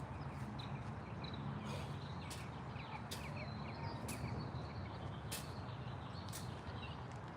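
Small birds chirping in short repeated notes over a steady low background hum, with a few brief sharp high ticks.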